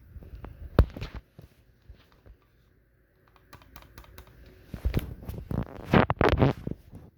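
Irregular clicks and knocks. Two sharp ones come about a second in, and a denser cluster of louder knocks runs from about five to six and a half seconds in.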